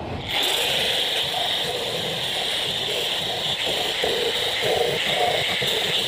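Electric angle grinder switched on and running steadily with a high whine, its disc worked across pallet-wood planks.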